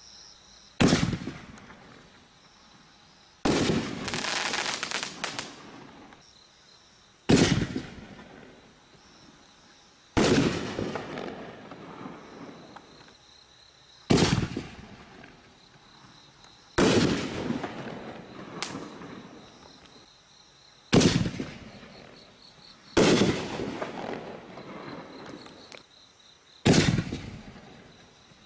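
TNT Fireworks 'Arsenal' consumer firework going off: about ten sharp bangs a few seconds apart, each trailing off quickly. The bang about three and a half seconds in is followed by a couple of seconds of crackling.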